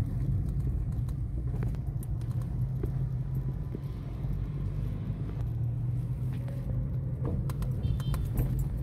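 Car interior noise while driving slowly: a steady low engine and tyre rumble inside the cabin, with a few light clicks near the end.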